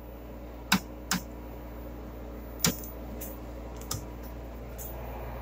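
A rotary VHF channel selector on a 1978 Hitachi portable colour TV, turned by hand, giving several sharp detent clicks at irregular intervals. A steady low hum and hiss runs underneath.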